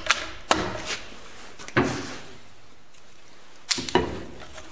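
Timber-framing chisel struck with a mallet, knocking the waste out of a kerfed saddle notch in a wooden beam. A few sharp knocks, with a pause of about two seconds between them.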